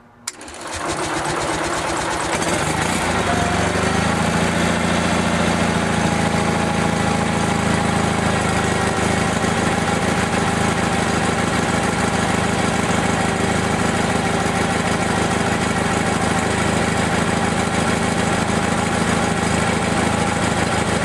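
Onan generator engine started from its newly wired remote start switch: a click, a brief crank as it catches, then it settles within about two seconds into a steady run.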